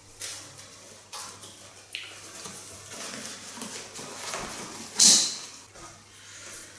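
Hands tightening and tucking the nylon straps of an Osprey Atmos 65L backpack and fitting trekking poles to it: fabric rustling and a few light clicks, with a loud brief rasp about five seconds in.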